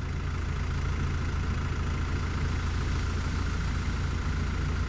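Diesel engine of heavy earthmoving equipment running steadily at constant speed, with a deep, even hum.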